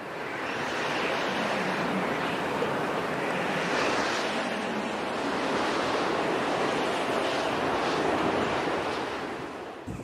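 Steady rushing noise like ocean surf, swelling and easing gently; it fades in at the start and dies away near the end.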